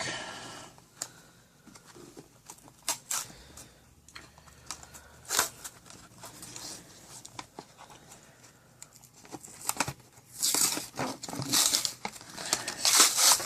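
SSD retail box being torn open and its contents handled: scattered light taps and scrapes, then louder tearing and crinkling about ten seconds in and again near the end.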